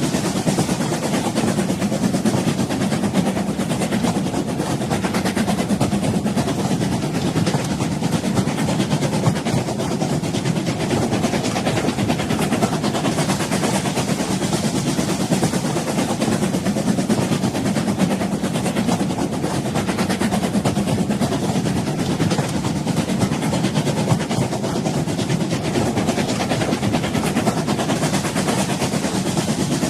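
Train running along the track: a steady, continuous rumble of wheels and carriages with no pauses or horn.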